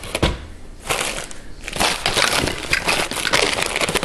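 Hands rummaging through a wooden cabinet: a couple of sharp clicks at the start, then steady rustling and clattering of objects being shifted about from about a second in.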